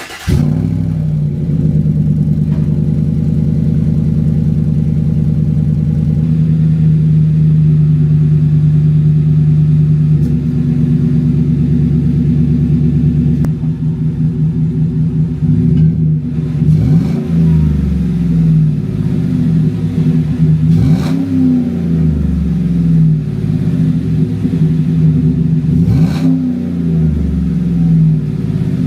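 A 2016 Chevy Silverado's engine running through a newly fitted cheap side-exit exhaust: it starts, idles steadily, then is revved in several short throttle blips from about halfway through.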